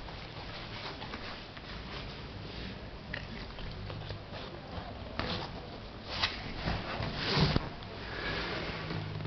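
American Staffordshire Terrier puppy sniffing and pawing at furniture as it hunts a fly. A few short, noisy bursts come between about five and seven and a half seconds in, the loudest near the end.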